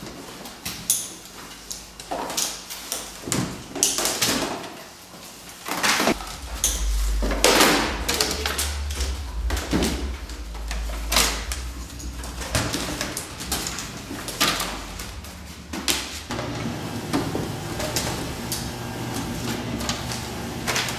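Framed artworks being pulled apart by hand: a string of sharp cracks, rips and clatters as mat board, cardboard backing and frame pieces are torn and dropped. About three-quarters of the way through, a small electric paper shredder's motor starts a steady hum.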